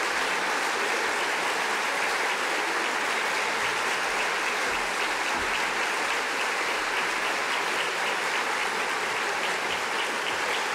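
Large audience applauding steadily in an auditorium.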